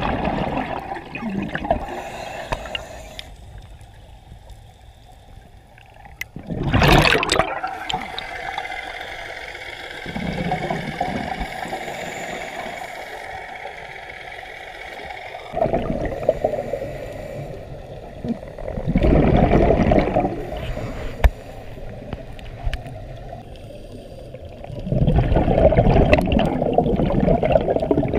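Scuba diver's exhaled breath bubbling out of the regulator, heard underwater as gurgling bursts a few seconds apart, about six in all, with a fainter hiss between them.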